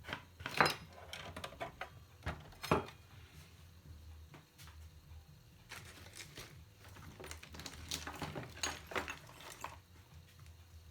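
Scattered clicks and knocks of small tools and parts being handled on an electronics workbench, two sharper knocks near the start and a busier run of clicks later, over a steady low hum.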